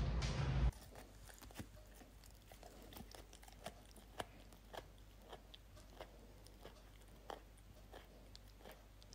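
A louder noisy sound cuts off abruptly under a second in. Then, in a quiet room, a dog makes soft, irregular chewing clicks and smacks, about one or two a second.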